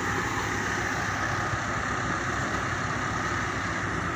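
Excavator's diesel engine running steadily, with a rapid low throb.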